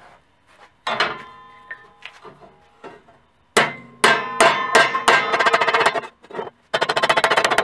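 Hammer blows on the edge of a rolled 18-gauge 304 stainless steel tube laid over a wooden 2x4, rolling the flat seam edges over so they will line up for welding; the strikes ring like sheet metal. There is one blow about a second in, a steady series of strikes from about halfway, and a quick run of blows near the end.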